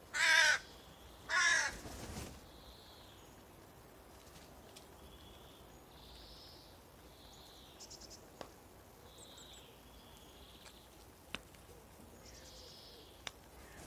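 Common raven giving two loud calls about a second apart, followed by quiet with a few faint, sharp clicks.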